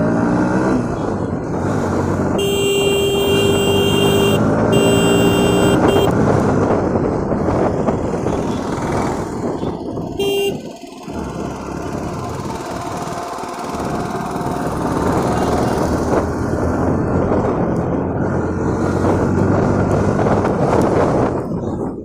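Motorcycle engine accelerating hard, its pitch climbing and dropping back again and again as it shifts up through the gears. A vehicle horn sounds twice, a second or so each, in the first few seconds, and gives one short toot about ten seconds in.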